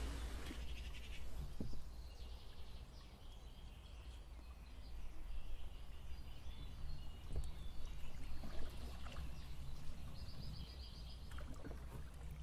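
Outdoor river ambience: birds calling faintly again and again, with a quick run of short high notes near the end, over a low steady rumble.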